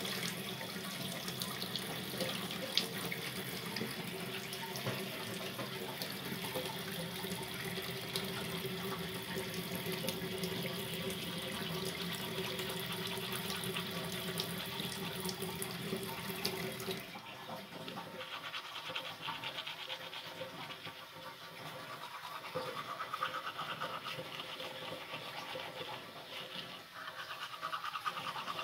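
Water running from a tap into a stainless steel sink, a steady splashing rush that drops off sharply about two-thirds of the way through, leaving quieter, uneven water sounds.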